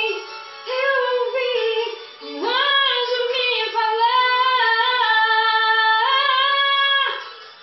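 A woman singing, drawing out long sustained notes, with a scoop up in pitch about two and a half seconds in; the last note is held for about three seconds and then fades out near the end.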